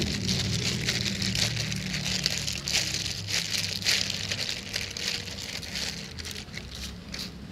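A plastic bag worn over the hand crinkles and rustles irregularly as the hand squeezes and rolls sticky biscuit dough into balls.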